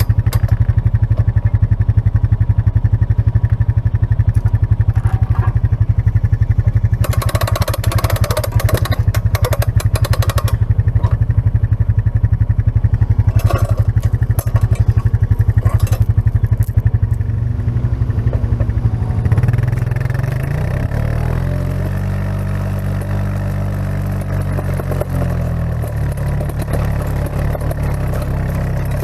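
Kubota KX-018 mini excavator's diesel engine running at high revs, with bursts of clatter about a quarter of the way in and again around the middle. In the last third the engine note drops and then sags and recovers in pitch, as it does under changing hydraulic load.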